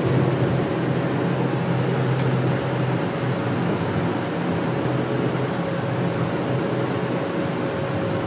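Steady engine and road noise inside a moving bus's cabin at highway speed, with a thin steady hum running through it.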